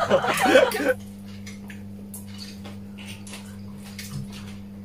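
Faint, scattered clicks and crackles of cooked shrimp and crab shells being peeled by hand, with chewing, over a steady low electrical hum.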